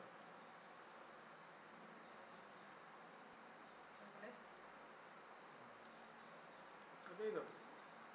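Near silence, with a faint, steady, high-pitched insect drone and two faint brief sounds, about four and seven seconds in.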